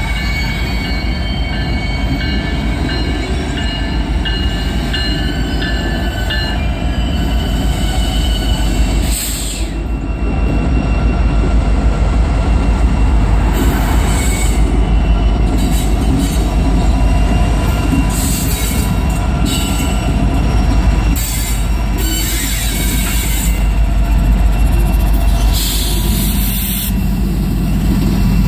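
Norfolk Southern diesel locomotives running past at low speed, their engines giving a heavy, steady rumble, with steel wheels squealing on the rail over the first several seconds.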